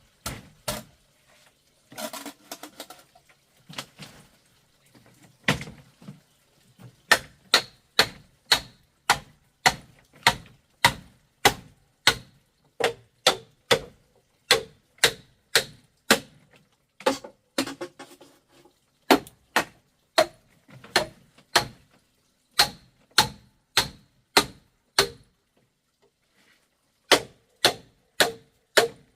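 Hammer blows on wood, struck in a steady rhythm of about two a second, with a few scattered knocks at first and a short pause near the end.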